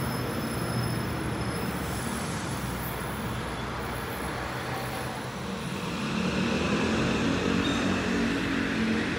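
Metro-North M8 electric multiple-unit train at the platform, a steady rumble and electric hum with a low drone that grows louder about six seconds in.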